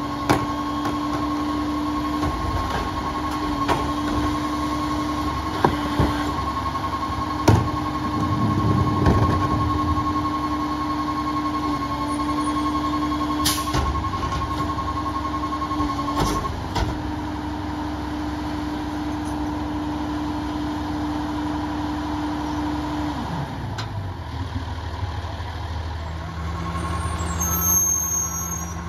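Peterbilt 337 rear-loader garbage truck working its New Way Viper packer, the engine held at raised revs for the hydraulics. Over it runs a fast, steady beeping alarm, the sign that the body has reached full capacity, with several metal clanks from the cart and the packer in the first half. About two-thirds of the way in, the revs drop and the engine settles to a lower idle.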